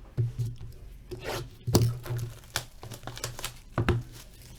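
Trading-card packaging being torn open and crinkled: several sharp crackling rips and rustles, loudest about two seconds in and again near the end.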